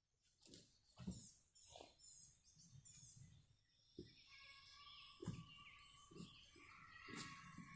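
Birds chirping, with soft thumps and knocks every second or so. A faint steady high hum sets in about halfway through.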